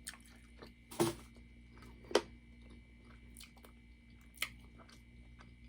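A person chewing seafood close to the microphone: soft wet mouth clicks and lip smacks, with louder smacks about one and two seconds in and again past four seconds.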